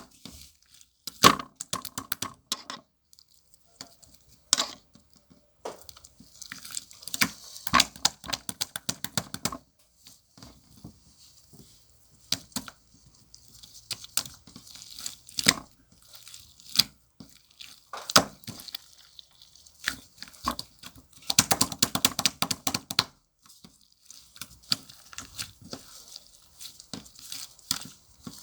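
Slime topped with shaving foam being pressed and squeezed by hand, giving sticky crackling and popping in irregular bursts with short pauses between.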